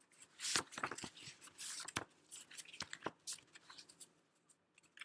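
Handling noise: irregular rustling and sharp clicks, thinning out after about four seconds, with one last click near the end.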